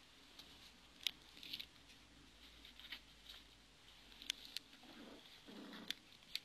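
A dog and a cat playing: faint, scattered light clicks and taps, like claws on a hard floor, with a soft scuffle about five seconds in.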